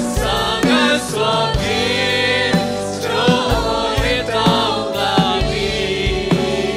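Live worship band playing a Christian song in Burmese: several voices singing together over a drum kit keeping a steady beat, with bass and guitars.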